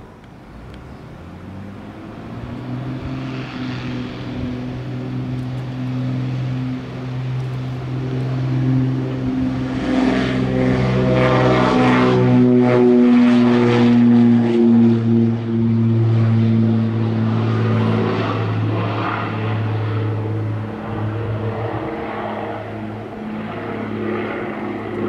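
Piper PA-60-602P Aerostar's twin turbocharged piston engines and propellers at take-off power, a steady drone that builds from a couple of seconds in. It is loudest as the aircraft passes on its take-off roll around the middle, the pitch dropping as it goes by, then it fades as the aircraft climbs away.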